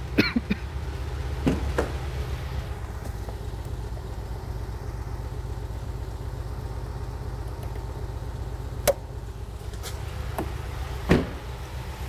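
2011 Ford Escape's 2.5-litre four-cylinder engine idling steadily with a misfire on cylinder one. A few short clicks and knocks sound over it.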